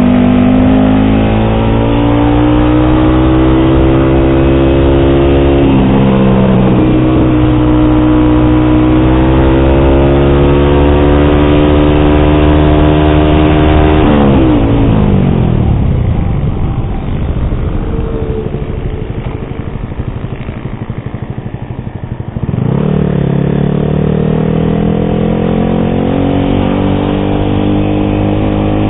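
Yamaha R15 V3's 155 cc single-cylinder engine through an SC Project exhaust with dB killer, accelerating hard with its pitch climbing, dropping at gear changes about a second and six seconds in. Just past the middle the throttle closes and the engine note falls and quietens for several seconds, then it picks up sharply and climbs again.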